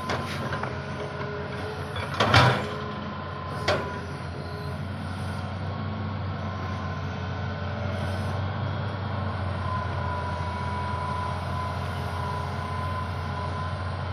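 Excavator's diesel engine running steadily while working, with three sharp knocks in the first four seconds and a faint steady whine coming in about halfway through.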